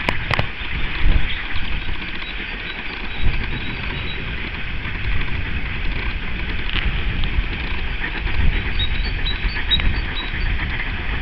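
Outdoor countryside ambience: wind rumbling unevenly on the microphone over a steady hiss, with a few faint bird chirps about nine seconds in.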